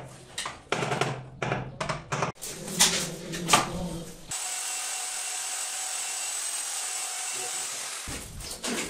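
Construction tool work: scattered knocks and clatter for about four seconds, then a steady hiss with a faint whine that starts and stops abruptly, then knocking again near the end.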